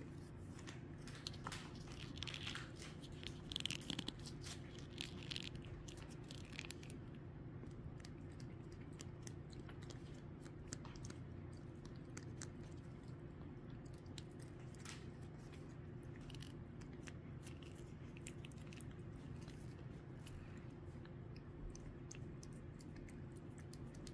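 Cat licking a lickable cat treat from a squeezed tube: faint, quick wet clicks of the tongue, a little louder in the first few seconds. A steady low hum runs underneath.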